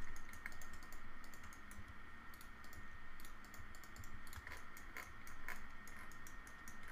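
Light, irregular clicking of a computer keyboard and mouse as shortcut keys are pressed, over a faint steady high-pitched hum.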